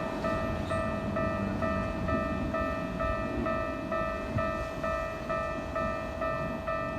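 Japanese railway level-crossing alarm sounding its repeating electronic clang, about two strikes a second, over a continuous low rumble.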